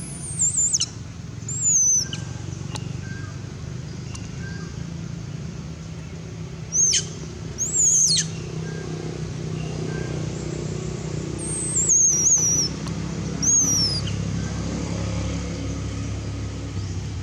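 Baby macaque crying: six shrill squeals, each falling in pitch and under a second long, coming in pairs. A steady low engine hum runs underneath.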